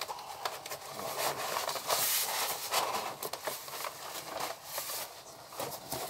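Cardboard being handled and rubbed, rustling and crackling in irregular bursts with small clicks.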